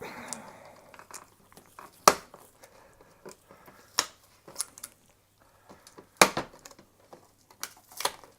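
Plastic scanner parts being handled during disassembly: a short crinkling rustle at the start, then scattered sharp clicks and knocks of plastic being moved and pried.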